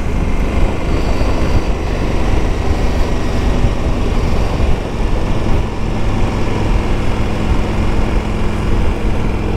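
KTM 1290 Super Adventure S's V-twin engine running steadily on the move, heard under a dense rumble of wind and road noise.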